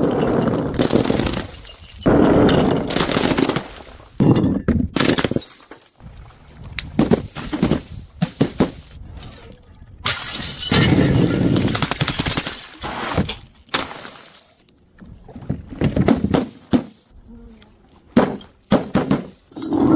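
Glass bottles breaking, one after another: a series of sudden crashes and shattering impacts, some heavier with a low thud, a dozen or so spread irregularly.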